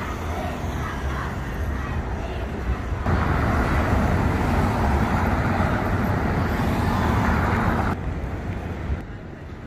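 Outdoor street noise with passing traffic. It gets louder suddenly about three seconds in and drops away abruptly near the end.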